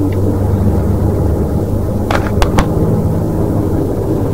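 Truck's engine and cab noise droning steadily while driving, heard from inside the cab. A few sharp clicks sound about two seconds in.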